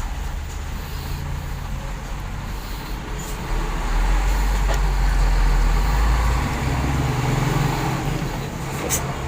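Low engine rumble of road traffic passing nearby, swelling about four seconds in and easing off after six. A short sharp click near the end.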